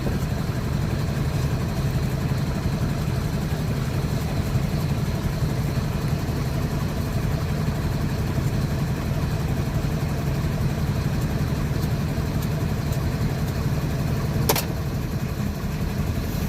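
Heavy-equipment diesel engine running steadily, with a single sharp click near the end.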